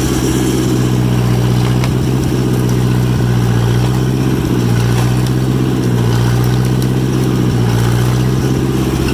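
John Deere 1010 crawler's engine running steadily in first gear as the machine pushes forward.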